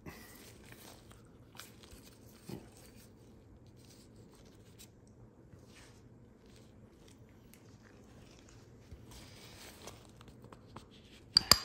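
Faint handling sounds of a piston pin being pushed through a Porsche M96 piston with a 14 mm socket. Near the end come two sharp metallic clacks with a brief ring as the pin comes free.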